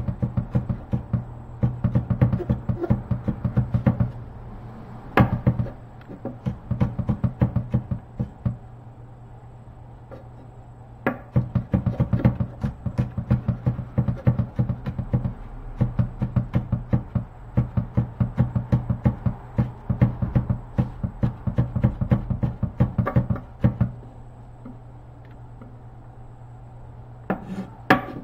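Kitchen knife rapidly chopping garlic on a wooden cutting board: runs of quick taps, several a second, broken by short pauses, over a steady low hum.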